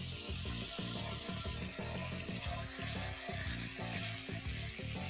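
Soy sauce and chilli sauce sizzling in hot oil in a frying pan as a wooden spatula stirs them, with background music.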